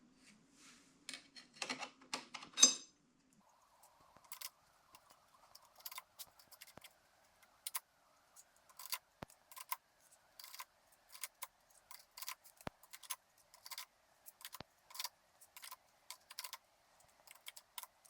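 Metal clutch parts of a Rekluse Radius CX clutch pack clinking and clicking as they are set back into the clutch basket, with a louder clank about two and a half seconds in and irregular light clinks after that.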